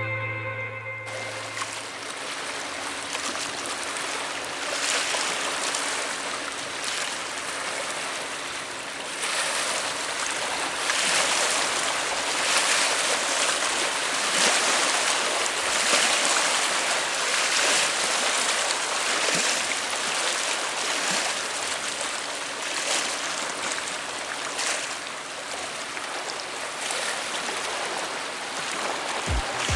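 Rushing water and waves, a steady wash that swells and eases, with a faint steady low hum underneath.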